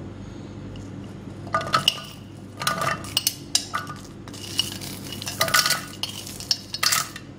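Garlic cloves and dried red chillies clattering off a plate into a stainless steel mixer-grinder jar, with metallic clinks that ring briefly. The clinks come in short bunches, starting about one and a half seconds in and recurring every second or so.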